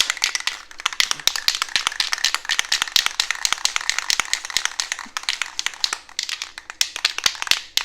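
Aerosol can of primer being shaken, the mixing ball inside rattling in a rapid run of sharp clicks.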